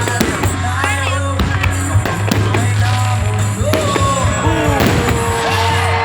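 A fireworks display: scattered sharp bangs and rising and falling whistles over loud music with a steady deep bass note.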